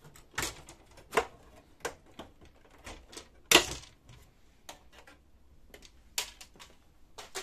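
Irregular plastic clicks and knocks as the white plastic back panel of a Samsung Xpress M2875 laser printer is unclipped and lifted off its frame. The loudest knock comes about three and a half seconds in, as the panel comes free.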